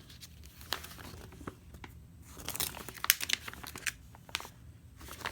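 Paper rustling and crinkling in irregular crackles as an instruction manual is handled and its pages turned, busiest in the middle.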